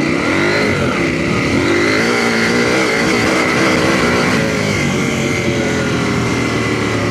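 KTM 890 Adventure's parallel-twin engine, breathing through a Black Widow hexagonal stainless-steel exhaust with the standard catalytic converter, under load while riding off-road. Its pitch rises and falls with the throttle, then settles and eases down.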